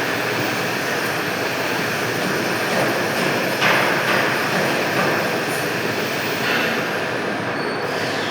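Steady machine din of a lathe-type pipe-cutting machine running, with a couple of short louder swells.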